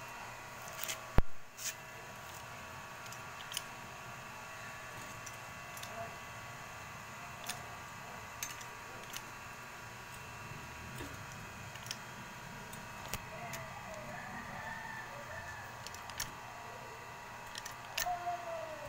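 Scattered sharp clicks, one loud click about a second in and smaller ones every second or two, over a steady background hum with faint steady tones.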